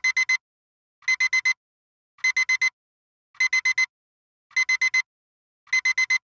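Digital alarm-clock beeping, sounding as the 40-minute countdown timer runs out. A high-pitched electronic beep comes in quick groups of four, one group about every second, starting suddenly out of silence.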